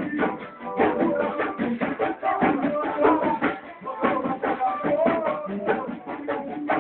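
Live pagode (Brazilian samba) band playing: a steady samba beat on drums and percussion with plucked strings, and a man singing into a microphone.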